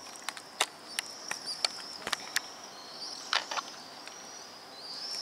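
A high-pitched, wavering chirring from outdoors, broken by a string of irregular sharp clicks.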